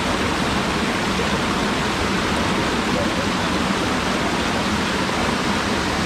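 Mountain stream water rushing and splashing over boulders in a small cascade, a steady, unbroken rush of falling water.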